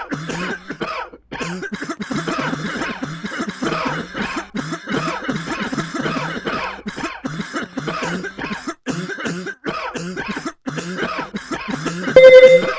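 A person coughing over and over, short rough coughs in quick succession with brief gaps between them. Near the end a short, loud, steady electronic beep cuts in.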